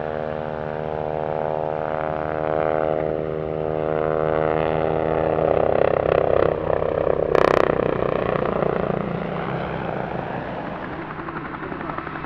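Historic British Army helicopters, the Westland Scout and Bell Sioux, flying a low display: a steady rotor and engine drone that grows louder through the middle and eases off near the end, with a short sharp noise about seven seconds in.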